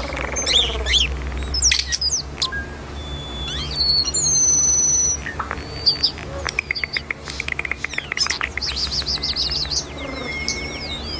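Bird song: a run of chirps, sliding whistles and quick rapid-fire trills, with one held, buzzy multi-toned note near the middle.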